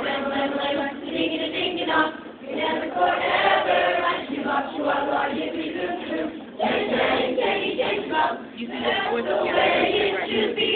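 A group of young voices singing together like a choir, in phrases with short breaks between them.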